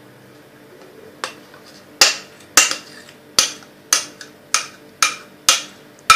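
A kitchen utensil knocking against the rim of a mixing bowl while cheesecake filling is scraped out of it: a faint knock about a second in, then sharp clicks about two a second from about two seconds in.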